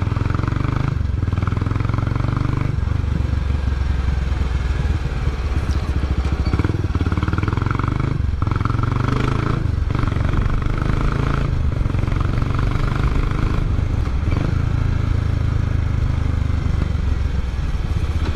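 Kawasaki Estrella BJ250A's air-cooled 250 cc four-stroke single-cylinder engine and exhaust under way, its note rising and falling with the throttle, with several brief dips.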